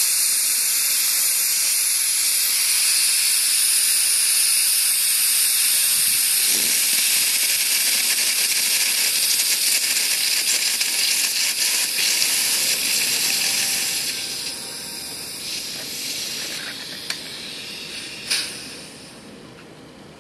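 High-pressure air venting from a small diving cylinder's valve and filling hose in a loud steady hiss. It weakens after about fourteen seconds and dies away near the end as the pressure runs down, with one brief sharp hiss shortly before it stops.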